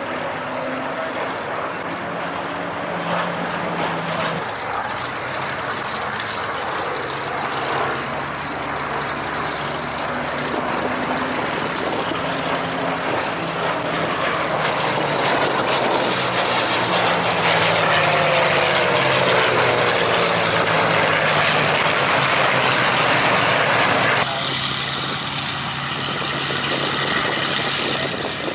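A formation of Spitfires flying past, their V12 piston engines droning together. The sound grows louder to a peak with a falling pitch as the aircraft pass, then changes abruptly near the end.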